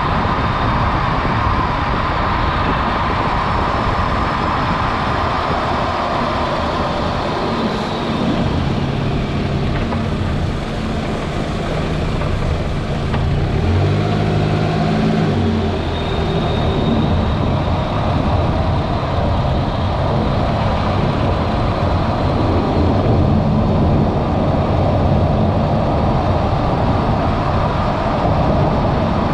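Toyota Vanguard 240S with its 2.4 L 2AZ-FE four-cylinder engine running, mixed with steady road or running noise. A low engine hum comes forward for several seconds in the middle.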